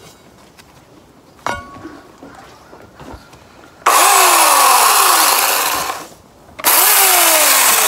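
A knock about a second and a half in, then a Craftsman electric chainsaw starts suddenly and runs in two bursts: the first runs for about two seconds and winds down, and the second starts about half a second later and keeps running.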